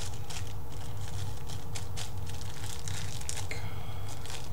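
Small plastic bag crinkling and rustling as it is handled, in irregular quick crackles, over a steady low hum.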